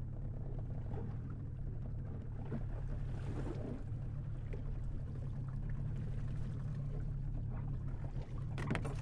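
Water splashing and dripping as a snorkeler hauls himself out of the sea into a small skiff, over a steady low rumble, with a couple of sharp knocks against the boat near the end.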